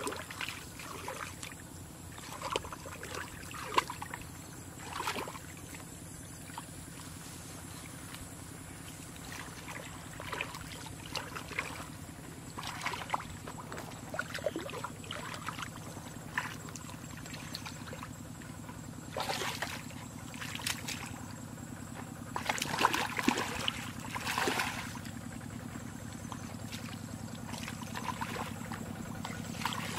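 Irregular sloshing and splashing of shallow muddy water as hands dig and grope in the mud for fish, with a louder run of splashes late on as she wades through the water. A faint steady low hum runs underneath.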